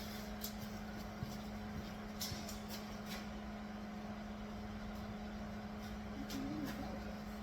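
A steady low hum with a few faint clicks and taps scattered through it, and a brief murmur about six seconds in.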